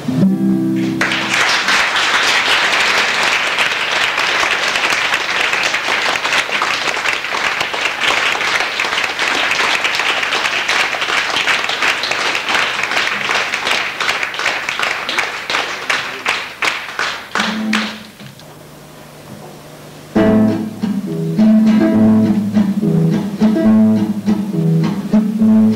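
An acoustic guitar chord rings out, then an audience applauds for about sixteen seconds before the clapping thins and dies away. After a short lull, an acoustic guitar starts playing the opening of the next song.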